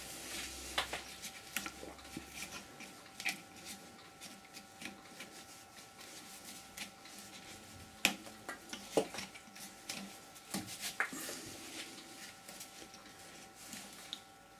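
Light, irregular scratching and clicking as rotten wood is worked on a lathe, over a faint steady motor hum.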